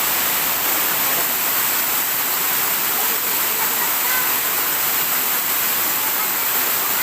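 Steady rush of a waterfall: falling water pouring without a break.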